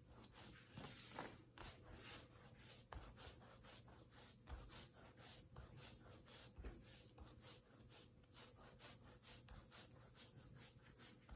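Faint rubbing of hands rolling a log of flour tortilla dough back and forth on a stone countertop, a soft brush with each stroke, a few strokes a second, over a low steady hum.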